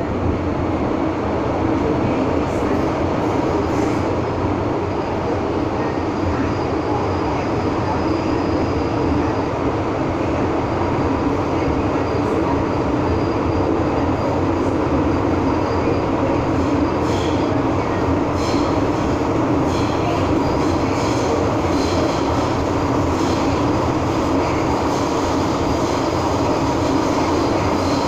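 Steady running noise inside an MTR M-Train metro car travelling at speed through a tunnel: a loud, even rumble and rush of wheels and motors, with faint high wheel squeaks now and then in the second half.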